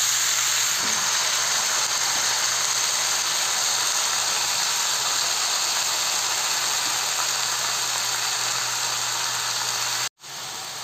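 Freshly chopped red amaranth leaves sizzling in hot mustard oil in an iron kadai: a loud, steady frying hiss with a faint low hum underneath, cutting off abruptly near the end.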